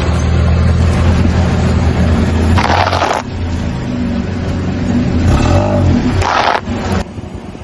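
Car engine running slowly, with two loud crunching bursts of noise about three and six seconds in, typical of the tyres crushing Coca-Cola containers. The engine sound drops away near the end.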